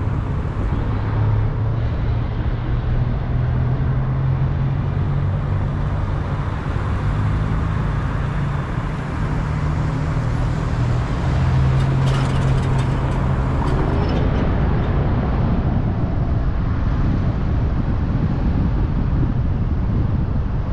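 Car driving on city streets: steady engine hum and tyre noise on the road, with a few light clicks a little past the middle.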